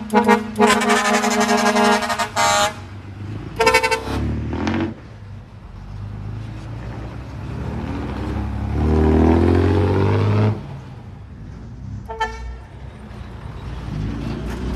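Dump truck air horn sounding: one long blast of about two seconds at the start, a shorter blast near four seconds and a brief one near twelve seconds. Between the blasts a truck engine runs, loudest around nine to ten seconds.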